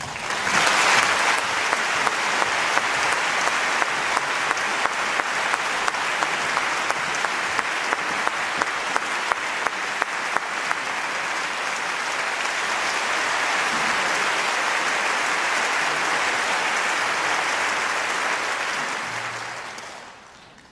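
Concert-hall audience applauding steadily, with single sharp claps standing out at an even beat, about two a second, through the first half; the applause dies away near the end.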